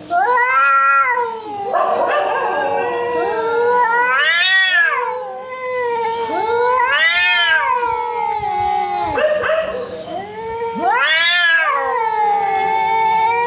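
Two cats caterwauling in a fight standoff: one holds a long, low, wavering yowl while the other lets out four louder yowls that rise and then fall in pitch, near the start and about 4½, 7 and 11 seconds in.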